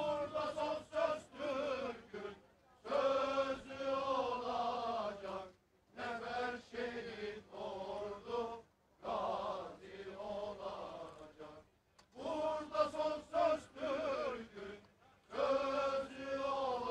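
A voice chanting in long, bending melodic phrases, each a few seconds long, with short pauses between them.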